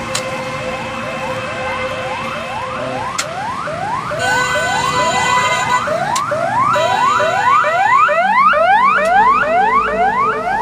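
Emergency siren on a hearse van, sounding a fast repeating rising wail about twice a second. A second overlapping series of sweeps comes in about four seconds in, and the sound grows louder toward the end.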